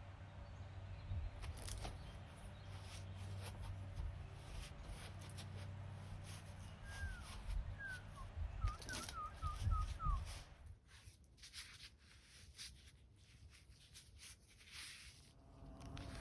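A bird calling a quick run of short, falling chirps about seven seconds in, over a low rumble with scattered clicks that drops away about ten seconds in.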